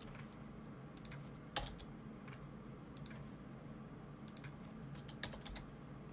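Computer keyboard keys tapped now and then: scattered single keystrokes and short quick runs of them over a faint low hum.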